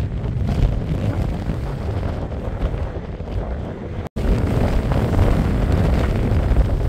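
Strong, gusty storm wind buffeting the microphone, a heavy, uneven low rumble that cuts out for an instant about four seconds in and resumes.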